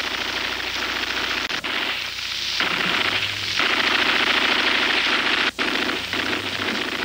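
Bursts of automatic machine-gun fire: a fast, continuous rattle broken by short pauses, loudest in the middle and cutting out briefly about five and a half seconds in.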